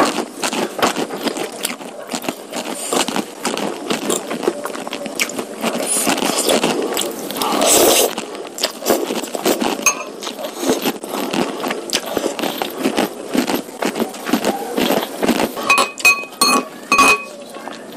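Close-miked eating sounds: wet chewing and mouth smacks on curry noodles and beef meatballs, with one longer noisy slurp-like sound about halfway and a few short metal clinks of a utensil near the end.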